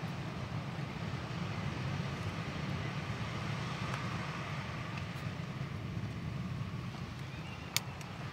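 Steady low background rumble, with one sharp click about three-quarters of the way through.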